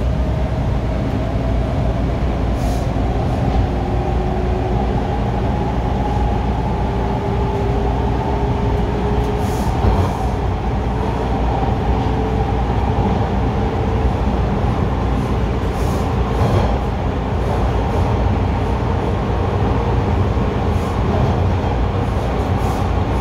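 Bombardier T1 subway train heard from inside the car while running between stations, with a steady loud rumble of wheels on rail. A whine from the traction motors rises slowly in pitch as the train picks up speed.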